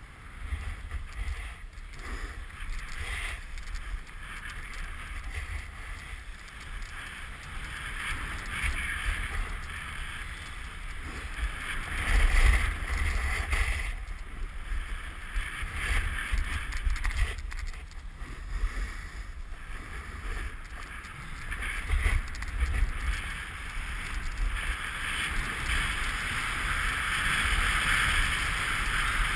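Snowboard sliding and carving over bumpy, cut-up snow: a rough scraping hiss that swells on each turn, loudest about twelve seconds in and again near the end. Wind rumbles on the microphone throughout.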